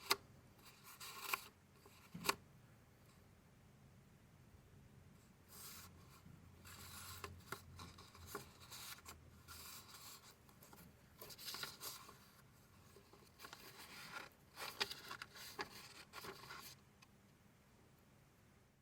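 Paper goods being handled: soft rustling and rubbing of paper in irregular bursts, with a couple of sharp clicks in the first few seconds.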